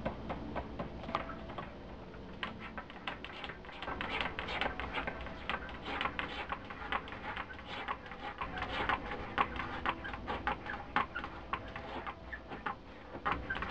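A cat digging with its front paws at the corner of a hard shelf: quick, irregular scratching and clicking of claws on the hard surface, several strokes a second.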